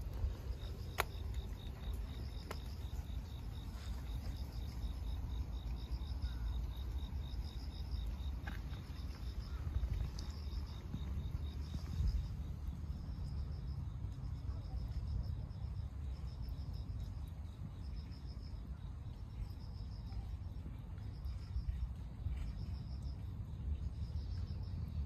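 Insects chirping in short pulsing trills, about one a second, over a steady low rumble.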